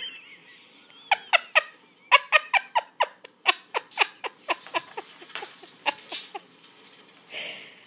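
A dog giving a rapid run of about twenty short, high yips, about four a second, that thins out and stops about six seconds in: excited play-yipping at a cat.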